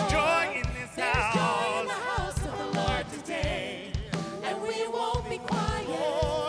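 Live contemporary worship band: lead vocalists singing over keyboard, guitars and a drum kit, with a steady beat of about two kick-drum hits a second.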